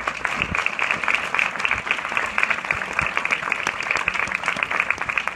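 Cinema audience applauding: many hands clapping in a dense, steady patter that breaks out all at once.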